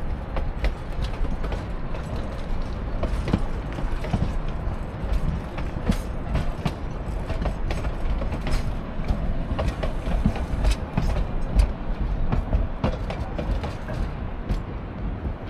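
Narrow-gauge railroad cars rolling past close by: a steady rumble of steel wheels on the rails, broken by many irregular sharp clicks from the wheels and running gear.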